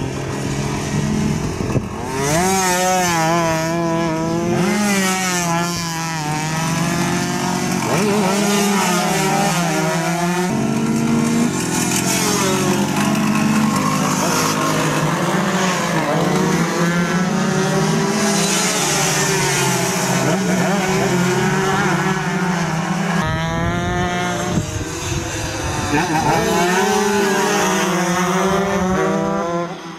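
Tuned 130 cc Yamaha F1ZR two-stroke racing motorcycles running at full throttle, their engine pitch repeatedly climbing and dropping as they rev through the gears.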